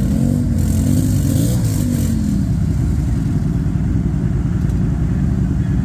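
ATV engine running, its pitch rising and falling with the throttle for about the first two seconds, then settling into a steady low drone.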